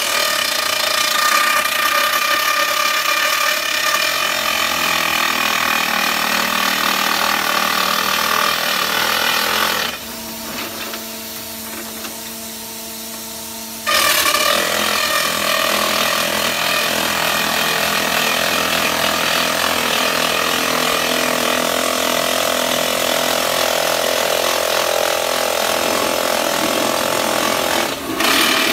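Hydraulic rock drilling rig's boom-mounted rock drill hammering into a rock face: a loud, dense, steady mechanical clatter. About ten seconds in the hammering stops for some four seconds, leaving a steady hum, then starts again at full loudness.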